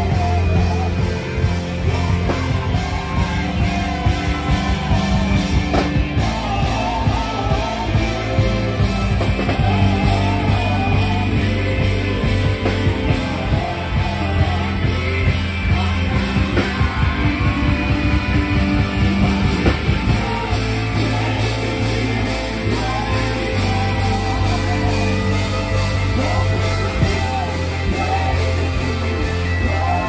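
Live band music played loud through PA speakers: a steady beat with bass and drums, and a singer's voice over it.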